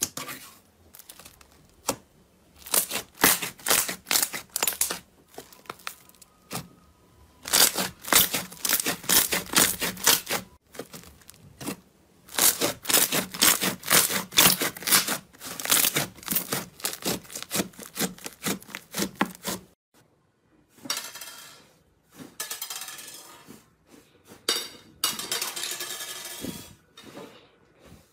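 Hands pressing and squeezing slime, giving rapid runs of wet clicks and pops. In the last third a grainier, crackly squishing takes over.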